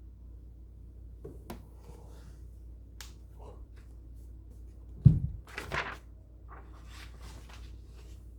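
A few faint clicks, then a sudden heavy thump about five seconds in, followed by a brief rustle or scrape: handling noise at a desk.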